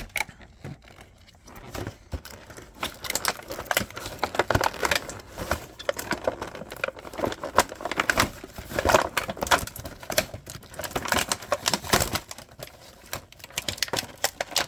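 Hard plastic toy parts and packaging being handled: an irregular run of small clicks and clacks with plastic crinkling as pieces are worked free of the tray. It is sparse at first and gets busier after about two seconds.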